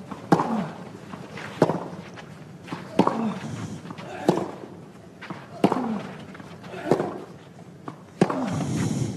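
Tennis rally on a clay court: racket strikes on the ball about every 1.3 s, six in all, several with a player's grunt on the shot. Crowd noise swells about eight seconds in as the point ends.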